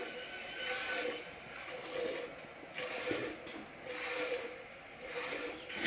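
Goat's milk squirting by hand into a steel pot: a rhythmic hissing swish with each squeeze, about once a second, with a faint ring from the metal.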